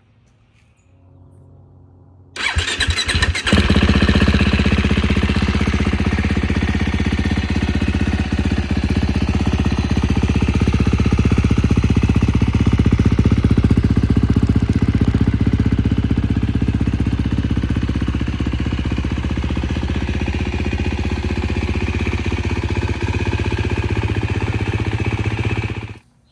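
2023 KTM 350 SX-F four-stroke single-cylinder motocross engine with an Akrapovič full titanium exhaust, starting about two seconds in with a brief stutter, then running steadily before stopping abruptly near the end.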